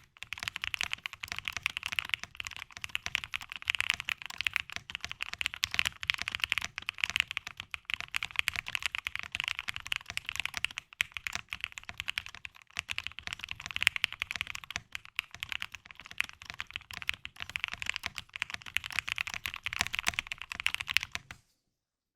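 Typing on a Tyche75 custom mechanical keyboard built with lubed and foamed Gateron Mini switches, a polycarbonate plate and milk keycaps: fast, continuous keystrokes that stop abruptly about a second before the end.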